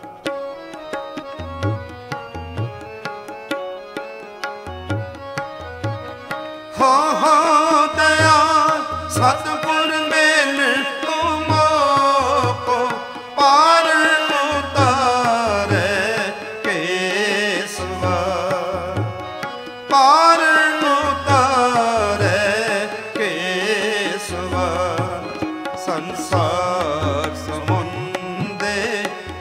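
Sikh kirtan with harmonium and tabla. For the first several seconds they play alone, the tabla's deep bass strokes under the harmonium's held chords. About seven seconds in, a male voice enters and sings long, drawn-out melodic lines over them.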